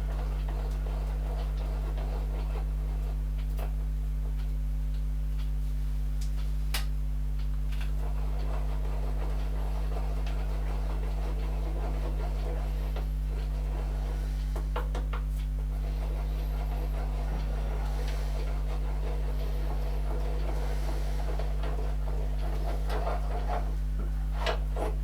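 A steady low electrical hum, with a few faint clicks and light knocks from metal parts being handled, spread far apart.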